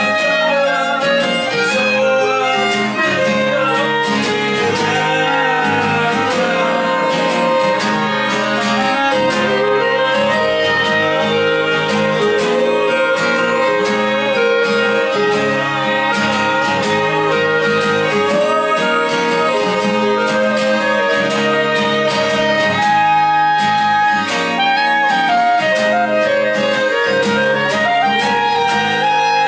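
Live instrumental trio of violin, clarinet and acoustic guitar playing an original folk-style tune: violin and clarinet carry melody lines over steady acoustic guitar accompaniment.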